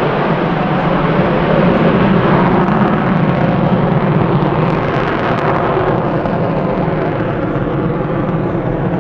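Lockheed Martin F-22 Raptor's two Pratt & Whitney F119 turbofans in afterburner as the fighter flies away. The noise is loud and steady and eases a little over the last few seconds.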